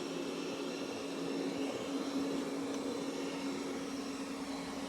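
Roborock Qrevo S robot vacuum running as it cleans: a steady motor hum with a constant low tone.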